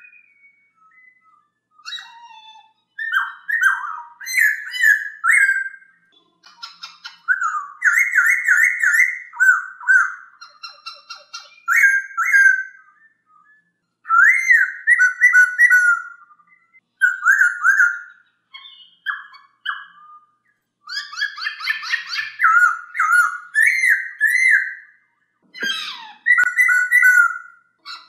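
Black-throated laughingthrush (poksay Hongkong) singing: loud, rapid runs of clear whistled notes delivered in phrases of a second or two with short pauses between, with higher chirps mixed in.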